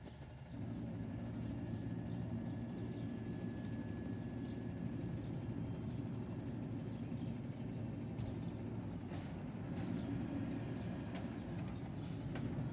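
Automated side-loader garbage truck working: its engine steps up about half a second in and runs steadily at raised revs, driving the hydraulics while the arm lifts a cart.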